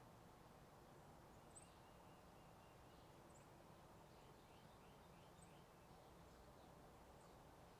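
Faint birds chirping: a few short, high chirps every couple of seconds and quick runs of repeated notes, over a steady low hum of distant highway traffic.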